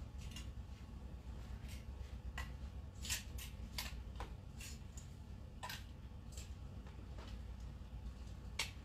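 Clothes hangers clicking and scraping on a metal rack rail as shirts are pulled off, a few sharp clacks scattered over a steady low room hum.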